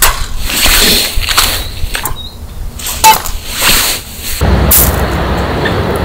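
Handling scrapes and rustles of camp gear, with a sharp metal clink about three seconds in as a stainless sierra cup is set down on a small stove. From about four and a half seconds in, water pours steadily from a plastic bottle into the cup.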